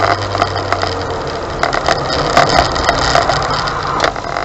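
Car engine running and road noise inside the cabin as the car is driven through tight low-speed turns, with frequent clicks and rattles; the steady engine note changes about a second in.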